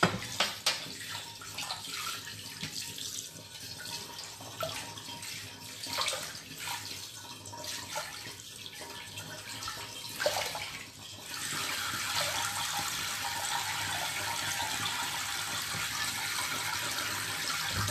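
Water running from a spray-head sink faucet into a steel basin, with uneven splashing and small knocks as a shaving bowl is rinsed under it. About eleven seconds in, the water becomes a steady, louder rush as hands splash it onto the face.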